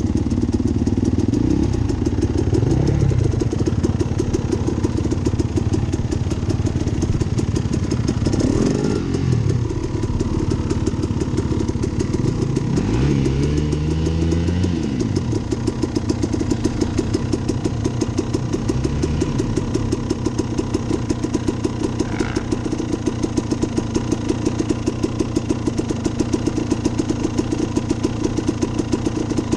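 Dirt bike engine, heard close up from the handlebars, blipped through several short revs that rise and fall, then settling to a steady idle with an even beat.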